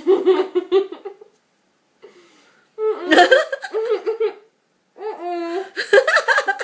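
Laughter in three fits, each a quick run of pulsed ha-ha sounds, with short breaks between them.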